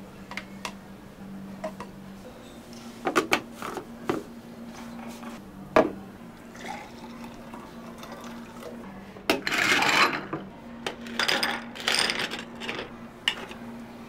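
Cups, utensils and containers clinking and knocking as a drink is prepared at a cafe counter, with a few louder rushing sounds, each about a second long, around two-thirds of the way through. A steady low machine hum runs underneath.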